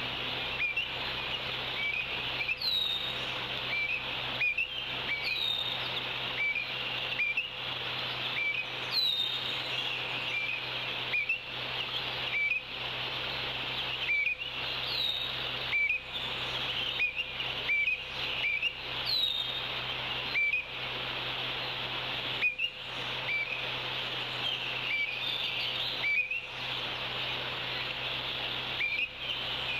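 A wild bird calling again and again, a short high note about every second and a half with now and then a higher curving note, over a steady high-pitched hiss of the outdoor background.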